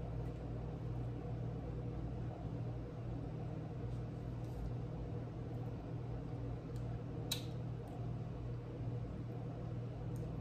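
Quiet room tone with a steady low hum, and one short faint click about seven seconds in.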